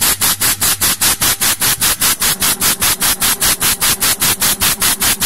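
Artikon DG604 CNC router cutting wood: a loud rasping noise that pulses evenly about six times a second.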